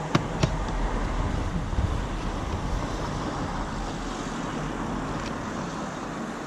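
Steady rushing noise, with two sharp clicks in the first half-second.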